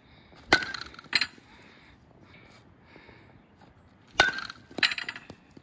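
Two tee swings with a metal baseball bat: each gives a sharp, ringing ping as the bat strikes the ball, followed about half a second later by a second, lighter knock. The first hit comes about half a second in, the second about four seconds in.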